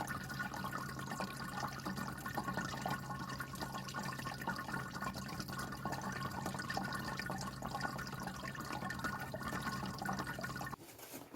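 Anko 3-litre pet water fountain running: water trickling and splashing over the bowl with a steady hum from the pump. It cuts off abruptly just before the end.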